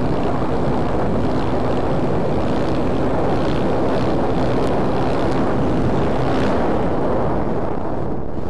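Heavy wind noise on a helmet-mounted microphone from riding a supermoto motorcycle at speed, with the bike's engine running at a steady note underneath.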